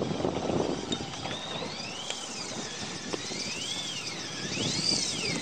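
A fly reel whining in surges that rise and fall in pitch, three or four times, as line runs on and off the spool while a hooked mackerel tuna is fought on the fly rod.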